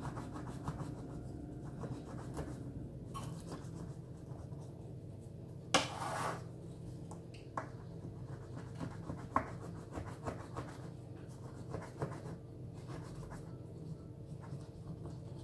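Knife cutting through the thin pastry layers of unbaked baklava in a round metal baking pan: soft scratching strokes with scattered clicks of the blade against the pan, and one louder crackle about six seconds in.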